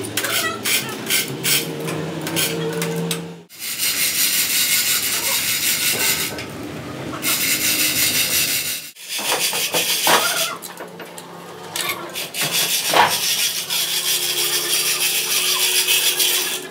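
Metal rattling and rasping, with scattered knocks, while a heavy axle housing is handled on a chain hoist. A steady machine hum runs through the first few seconds.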